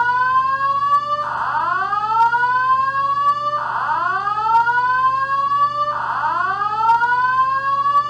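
Synthesized sci-fi fire alarm: a rising whooping tone that repeats about every two and a half seconds, over a steady low hum.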